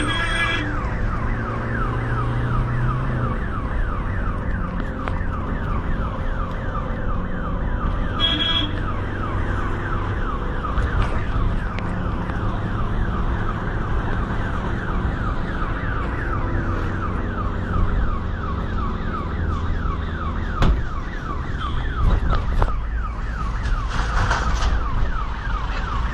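Ambulance siren in a fast yelp, rapid rising sweeps several times a second, heard from inside the ambulance over the low rumble of its engine.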